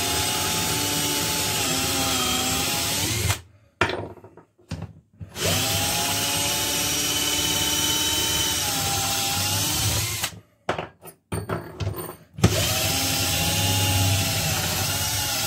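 Bosch GSB 120-LI 12 V cordless drill/driver backing long screws out of wood, in three runs of steady motor whine lasting about four seconds each. Between the runs come short knocks and clicks as the screws are set down.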